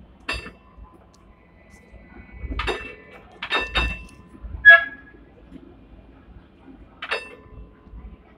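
Hong Kong tram's foot-operated warning gong struck about six times, single and double 'ding' strikes that ring on briefly, the loudest about four and a half seconds in, warning pedestrians on the track ahead. A faint low rumble of the tram running lies underneath.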